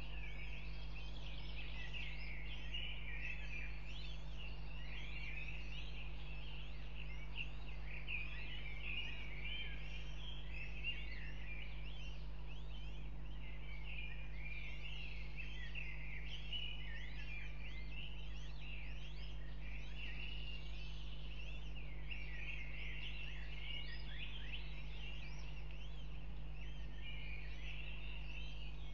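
Northern goshawk chicks peeping constantly in a rapid stream of high, short cheeps, begging while the mother feeds them at the nest. A steady low electrical hum runs underneath.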